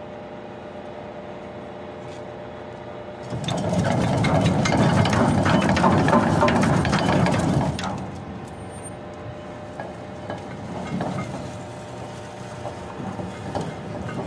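Ship's anchor chain running out in free fall through the windlass: a loud, dense clatter of chain links starts a few seconds in over a steady machinery hum, lasts about four seconds, then eases into quieter, scattered clanking.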